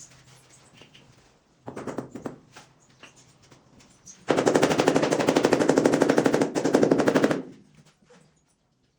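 A power tool rattling with rapid, even strokes for about three seconds, after a brief shorter burst about two seconds in.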